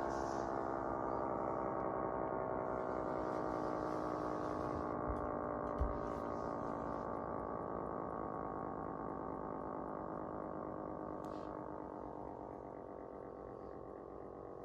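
A bank of miniature warning sirens winding down together: many overlapping tones slowly falling in pitch and fading. Two short knocks about five and six seconds in.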